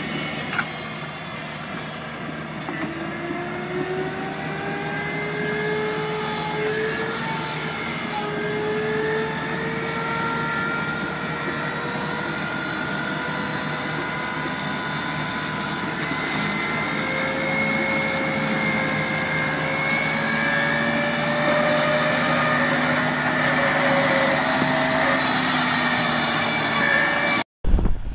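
Crawler excavator running with a hydraulic flail mower head cutting grass: a steady machinery noise with a whine that drifts slowly up and down in pitch. It cuts off abruptly near the end.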